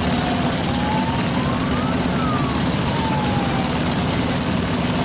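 Motorcycle running at speed under heavy wind rush, with a steady low engine hum and a fainter tone that rises and then falls through the middle.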